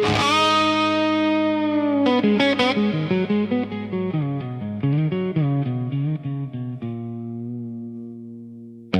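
AI-generated blues guitar intro: a note struck and held at the start, then a run of single picked notes from about two seconds in, settling on a held note that fades out near the end.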